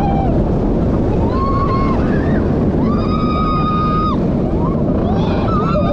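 Intamin steel roller coaster train running at speed, heard from on board: a steady rush of wind and track rumble. Riders let out long, high screams three times over it.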